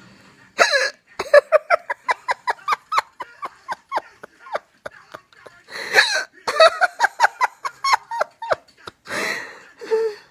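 Hiccup giggles: a person laughing in runs of short, high giggles, about four or five a second. Three sharp gasping hiccups break in, about half a second, six seconds and nine seconds in, and each sets off a fresh run. The giggling is involuntary.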